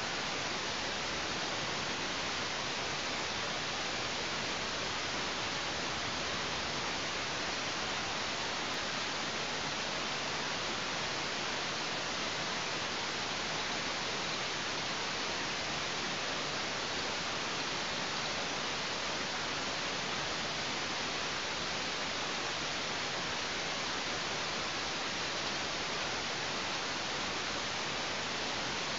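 Steady, even hiss with no bird calls or other distinct sounds.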